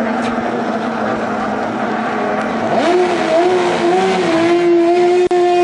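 Racing hydroplane engines running. About three seconds in, one engine revs up and holds a high, steady note.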